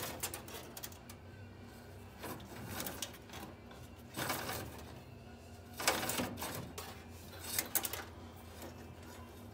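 Old car wiring harness being handled under a dashboard: wires and plastic connectors rustling, scraping and clicking in short irregular bursts, the loudest about four and six seconds in.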